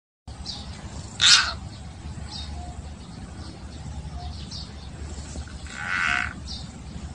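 Two short animal cries: a sharp, loud one about a second in and a longer, lower one near six seconds. Faint high chirps sound now and then over a low steady background.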